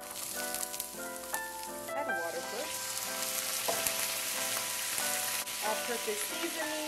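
Chopped onion sizzling as it hits hot oil in a nonstick frying pan, with a steady hiss that starts as the pieces drop in. Background music plays along.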